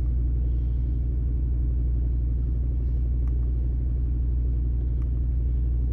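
2005 Chevy Colorado's 3.5-litre inline-five engine running steadily, a low drone, while misfiring on cylinder 3, which the scan tool shows as very bad.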